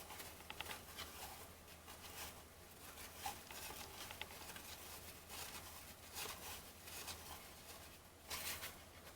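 Trading cards being handled and flicked through by hand: soft, irregular rustles and slides of card stock with small clicks, a slightly louder rustle near the end, over a faint low hum.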